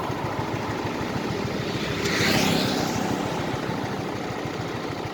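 Vehicle engine running steadily with rapid low pulsing. A swell of louder, hissing noise rises and fades about two seconds in.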